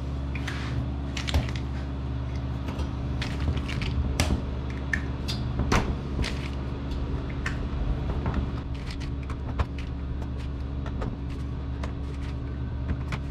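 Plastic snap-on lids being pressed onto milk sample vials in a stainless steel rack: a long string of irregular clicks and taps. Under them runs a steady low machine hum.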